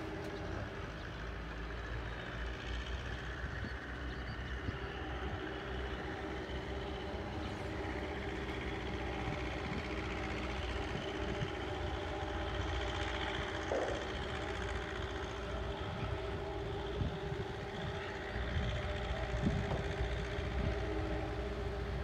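The SeaLion 2000 catamaran car ferry's diesel engines running with a steady drone as it manoeuvres astern to dock, under a low rumble.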